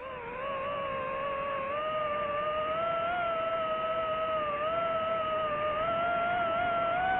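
DJI FPV drone's motors and propellers whining steadily in flight, the pitch wavering and slowly rising.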